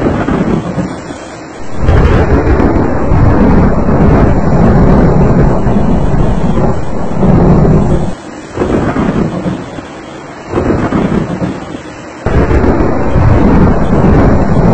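Thunderstorm noise, heavy rain with deep thunder rumble, loud and steady. It comes in several sections that cut off and start again abruptly.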